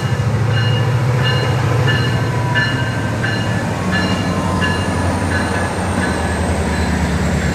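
MARC commuter train's MP36 diesel locomotive running as the train pulls into the station, with a steady low engine hum that shifts up in pitch partway through. Over it, a short high ringing tone repeats about every two-thirds of a second.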